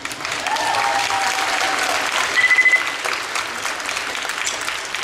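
Audience applauding in a hall, many hands clapping together, with a short high tone about two and a half seconds in.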